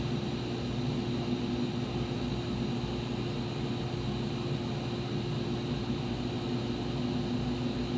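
Steady background hum with a constant low tone, unchanging throughout.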